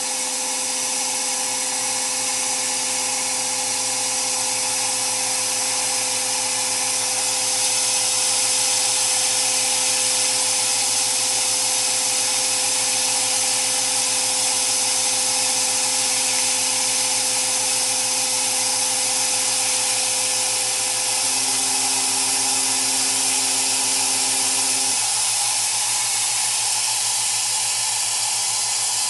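Sandblasting a steering rack inside a gas-dynamic spraying machine: a steady, loud hiss of compressed air and abrasive. Underneath it runs a steady whine of the machine's drive, which shifts in pitch about two-thirds of the way in and stops a few seconds before the end.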